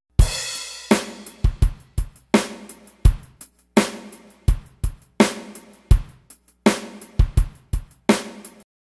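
Drum kit playing a short intro: kick and snare hits with cymbals ringing after them, about one or two strikes a second, stopping shortly before the end.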